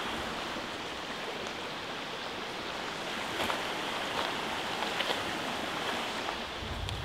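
Steady rush of river water pouring over a double weir, with a few faint clicks.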